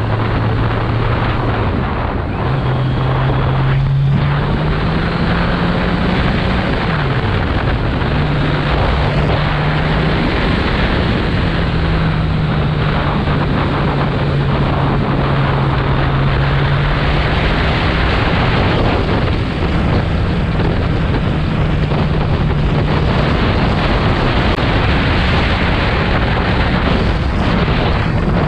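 Kawasaki motorcycle with an Akrapovič exhaust under way. The engine note climbs over the first few seconds, drops sharply about seven seconds in, then holds steady, with wind noise on the microphone throughout.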